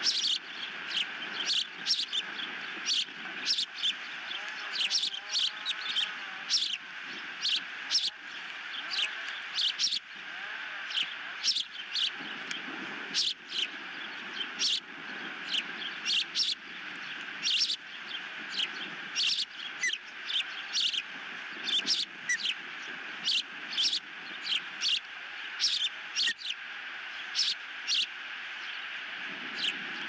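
Ospreys at the nest giving short, sharp, high-pitched chirps over and over at an irregular pace, roughly one or two a second, over a steady background hiss.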